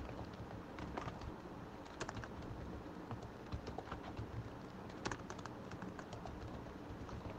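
Faint, irregular keystrokes on a computer keyboard, coming in small bunches as code is typed and partly deleted.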